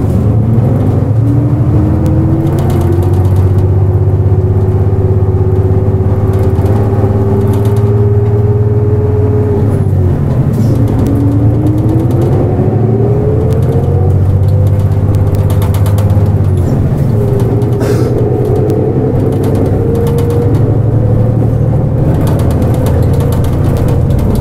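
Nissan Diesel KL-JP252NAN city bus under way: a low diesel rumble with a whine that climbs in pitch as the bus accelerates. The whine drops about ten seconds in, then climbs again, with another dip and climb later on.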